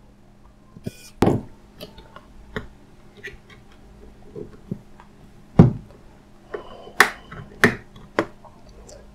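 Irregular small clicks and knocks of a screwdriver and a phone's plastic body being handled as tiny screws are driven into the back housing, the loudest knock a little past halfway.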